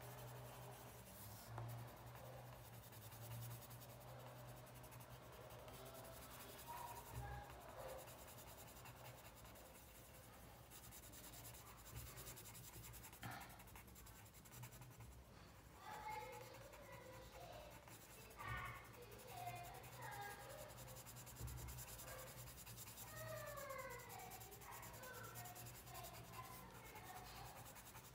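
Colored pencil shading on paper: faint, steady scratching of the pencil strokes. A few short, faint gliding tones come in during the second half.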